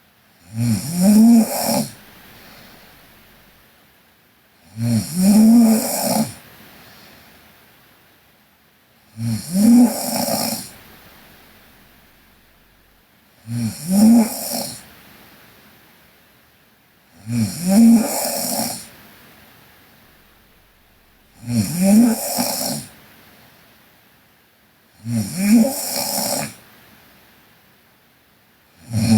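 A sleeping girl snoring steadily, a snore about every four seconds with quiet breathing between. Each snore rises in pitch.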